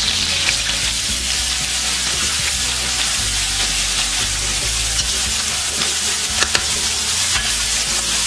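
Diced pork sizzling in hot oil in a metal wok as it is seared, stirred with a wooden spatula that scrapes and knocks against the pan. There are a couple of sharper knocks a little past the middle.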